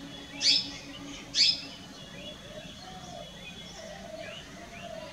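Plum-headed parakeet giving two loud, short, shrill calls about a second apart, then a few fainter similar calls near the end.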